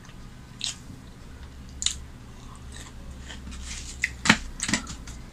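Close-up eating sounds: crisp, crunchy bites and chewing, heard as a few sharp clicks. The loudest comes a little after four seconds in.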